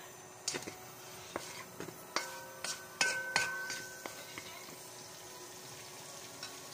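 Metal utensil clinking and tapping against a frying pan: a string of sharp strikes, the louder ones leaving a brief metallic ring, loudest about three seconds in.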